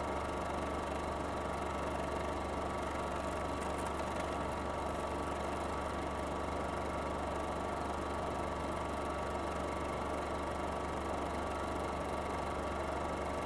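Film projector running: a steady mechanical hum with a few fixed whining tones, unchanging throughout.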